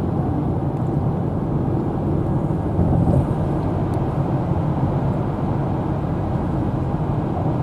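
Steady road and engine noise inside a moving car's cabin as it drives through a road tunnel.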